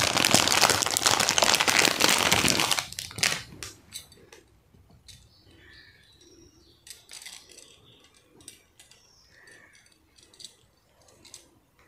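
Clear plastic packet crinkling loudly as it is pulled open and handled for about three seconds. Then faint, scattered clicks and light clinks as the metal bangles are taken out and handled.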